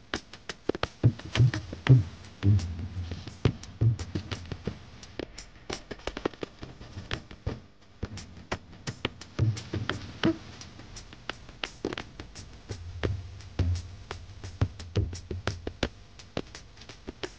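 Instrumental background music with busy drum-machine percussion over low bass notes.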